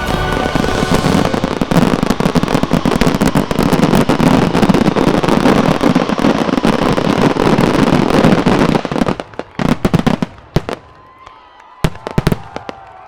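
Consumer (1.4G) fireworks going off in a rapid, dense barrage of bursts and crackle for about nine seconds, the closing volley of a display. The barrage then thins to a few separate loud booms.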